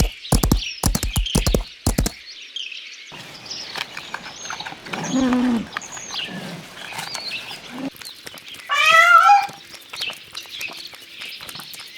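A cat meowing once, loudly, about nine seconds in, with a rising, bending pitch, over small birds chirping. A quick run of sharp knocks fills the first two seconds.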